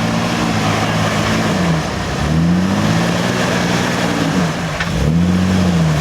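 Lifted off-road Jeep's engine working under throttle while crawling, its pitch climbing and dropping back twice as the driver gets on and off the gas, over a steady noisy hiss.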